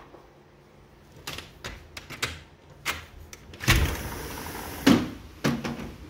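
Sliding glass balcony door being unlatched and opened: a run of handle clicks and rattles, then a longer sliding rumble a little past halfway and two sharp knocks near the end. A steady outdoor hiss follows once the door is open.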